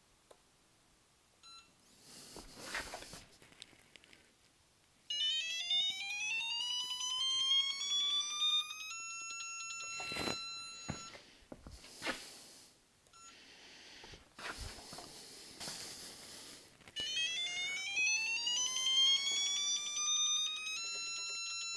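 Digital torque tester's electronic tone, twice, each time rising smoothly in pitch as the beam torque wrench is pulled against it, then holding one steady pitch. Between the two pulls there are rustles and a few clicks from handling the wrench and tester.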